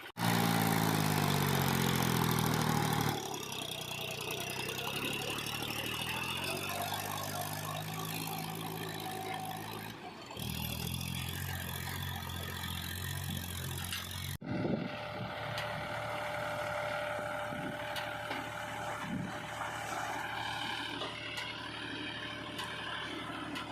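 Heavy diesel machinery engines running, the pitch shifting between segments, with abrupt breaks in the sound at several points; the sound grows fainter and steadier in the later part.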